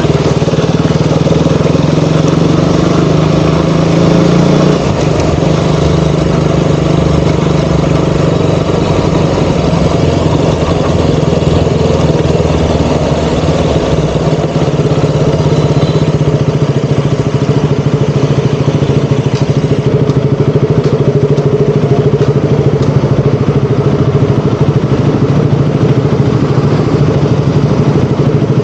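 KTM Duke 200's single-cylinder engine running steadily at low revs through city riding, the engine note changing about five seconds in.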